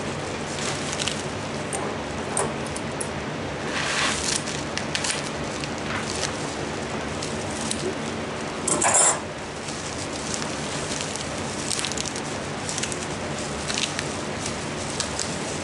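Bubble wrap and plastic packing rustling and crinkling in short scattered bursts as hatching eggs are unwrapped, the loudest about nine seconds in, over a steady low hum.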